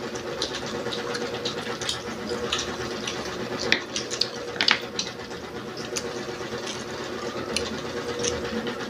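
Close-up crunching and chewing of crispy fried isaw (chicken intestines): irregular sharp crunches a second or so apart, over a steady faint hum.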